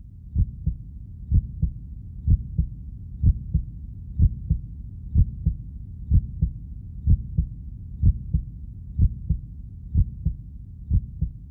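Heartbeat sound: low double thumps, lub-dub, repeating at about one pair a second.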